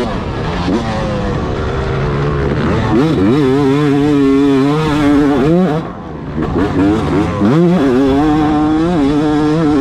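Yamaha YZ250 two-stroke single-cylinder dirt bike engine under hard throttle. Its pitch climbs sharply about three seconds in and holds high, drops briefly off the throttle around six seconds, then climbs and holds again.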